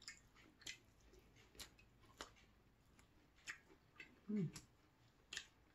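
Faint, irregular mouth clicks of people chewing air-fried potato and fried capelin, with a short low hum of the voice about four seconds in.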